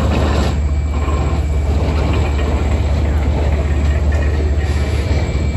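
Railroad turntable bridge rotating with riders aboard, giving a steady low mechanical rumble.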